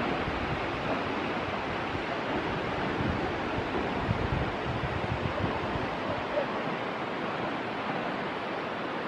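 Steady rushing noise outdoors, with a low rumble that swells and fades.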